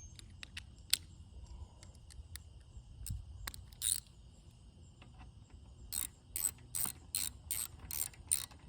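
Socket ratchet wrench clicking as a bolt is run down to fasten a seat track, about three clicks a second from about six seconds in. Before that there are a few scattered clicks and knocks.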